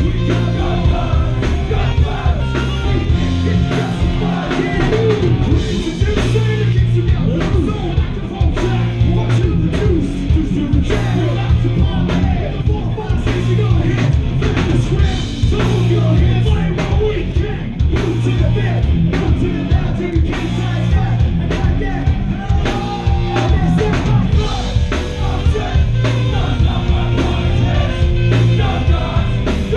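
Live rock band playing loud through a club PA: driving drum kit, distorted electric guitars and bass, saxophone and shouted vocals.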